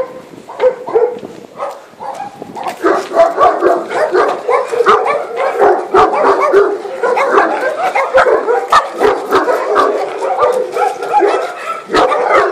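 Dog barking, scattered at first and then loud and almost without pause from about three seconds in.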